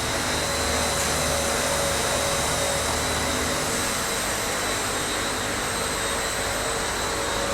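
Recycling machine running: a steady whirring motor noise with a thin high whine, like a blower. A low hum under it drops away about halfway through.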